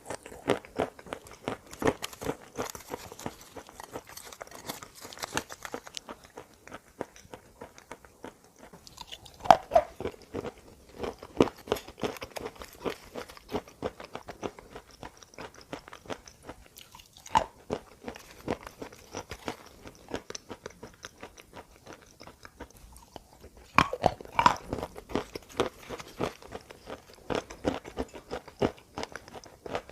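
Close-miked biting and crunchy chewing of hard, chalky edible earth (chalk and clay). A few sharper bites land about a third of the way in, just past halfway and again about four-fifths through, with steady crunching chews between and a couple of short lulls.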